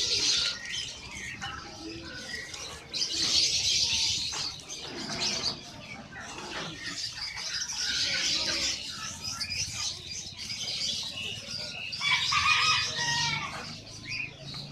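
Many caged birds chirping and twittering at once in a dense, overlapping chorus that swells and eases every few seconds.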